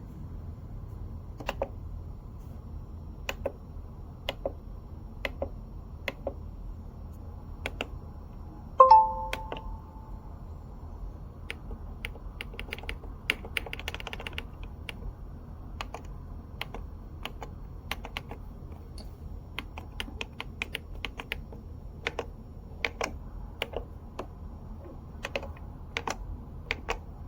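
Cuisinart SS-16 coffee maker running with a steady low hum and irregular sharp clicks and ticks. A short electronic beep sounds once about nine seconds in, the loudest thing here.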